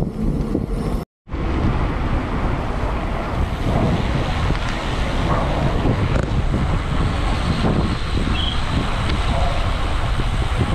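Wind buffeting the camera microphone on a moving bicycle: a steady, loud rumbling rush. It cuts out for an instant about a second in.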